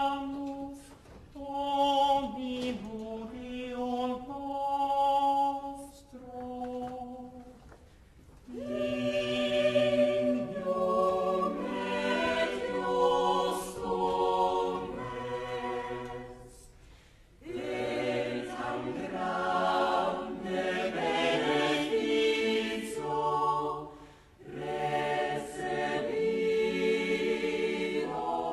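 Mixed chamber choir singing a cappella in phrases with short breaks between them; the texture is light at first, and low voices join for a fuller sound from about eight seconds in.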